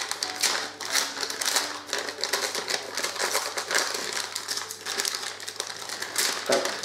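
Paper envelope being handled and opened by hand: continuous rapid crinkling with many small ticks. A brief voice sound comes near the end.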